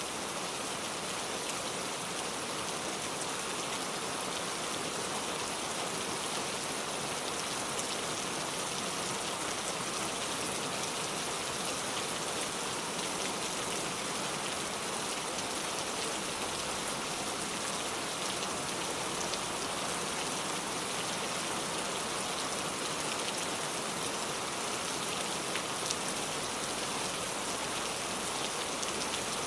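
Rain falling steadily: an even hiss with a few faint taps of individual drops.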